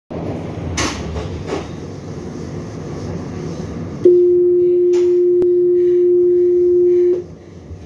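Inside a tram standing at a stop: a steady hum with a couple of knocks, then about four seconds in a loud, steady single-pitched beep that lasts about three seconds and cuts off: the tram's warning tone that the doors are about to close.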